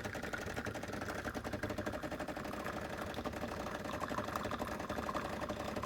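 Decent Espresso machine's pump running steadily while pulling an espresso shot, a fast, even pulsing buzz.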